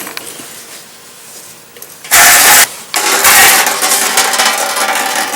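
Coolant draining from the radiator's lower drain into a drain pan. It starts with a brief loud gush about two seconds in, then runs as a steady loud rush of liquid.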